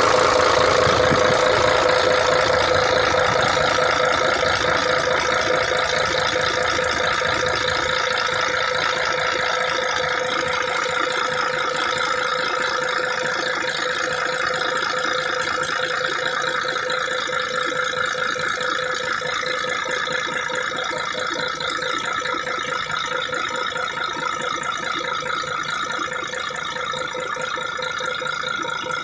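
Mercedes-Benz Actros 1844 truck's diesel engine running steadily with a rattling clatter. Its deep low end drops away about eight seconds in, and it grows slightly quieter toward the end.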